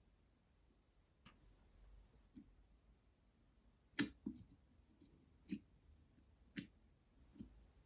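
Clay-mixed slime being pressed and pulled by hand, giving off about seven short, sharp clicks and pops, the loudest about four seconds in.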